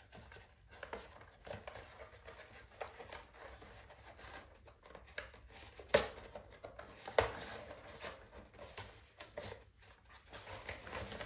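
Folded galvanized wire mesh being handled and pressed down into a mini mating nuc's feeder: light clicks and scrapes, with two sharper knocks about six and seven seconds in.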